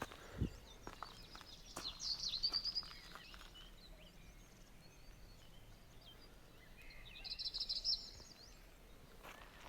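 Songbird singing in two bursts of quick, high trilled notes, the first about two seconds in and the second near the end, over faint outdoor background noise. A short dull thump sounds about half a second in.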